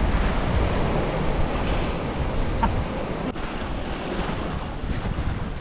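Ocean surf washing and splashing over a rocky shore, a steady rushing wash, with wind buffeting the microphone.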